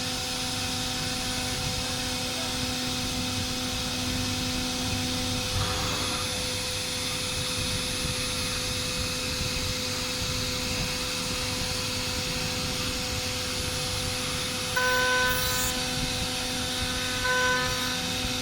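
CNC machine running: a steady hiss with a constant whine, and short, louder higher-pitched tones twice near the end.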